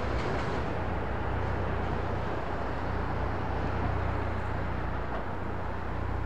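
A train running past with a steady rumble and a low hum underneath.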